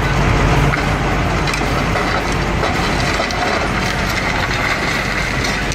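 A heavy forestry machine's engine running while wood cracks and splinters under it.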